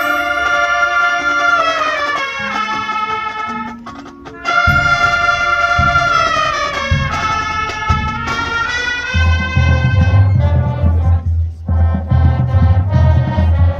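Marching band brass section playing loud held chords that slide downward in pitch, twice. About nine seconds in, drums and a heavy low pulse join in.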